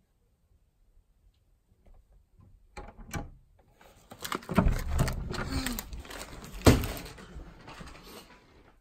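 Wooden interior door with a lever handle being opened: faint latch clicks about three seconds in, then from about four and a half seconds a busy stretch of rustling, steps and knocks as the door swings open into the room, with one sharp knock about two-thirds of the way through.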